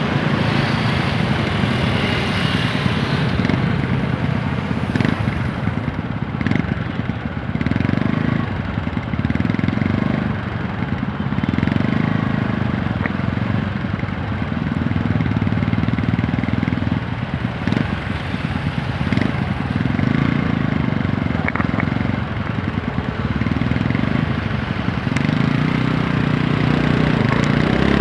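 TVS Apache 160 4V motorcycle's single-cylinder engine running on the move, its low note swelling and easing every couple of seconds.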